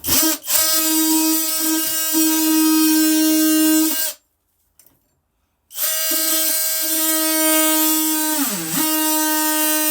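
Electric oscillating multi-tool buzzing at a steady high pitch as it cuts out rotten OSB. It runs for about four seconds, stops, then starts again about a second and a half later; near the end its pitch sags briefly as the blade bites into the wood under load.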